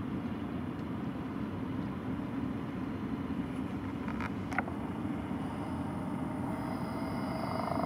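Low, steady drone of a small cabin cruiser's motor running at cruising pace. A short high chirp sounds about halfway through.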